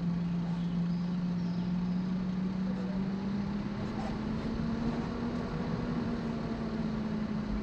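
Car engine running steadily, its drone slowly rising in pitch.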